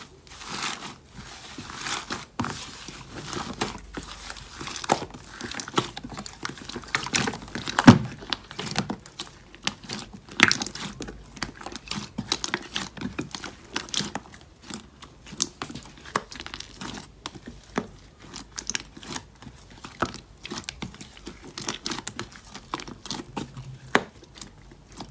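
Blue slime being squished, pressed and kneaded by hands in a plastic tub, giving rapid, irregular sticky clicks and crackles. The loudest pop comes about eight seconds in.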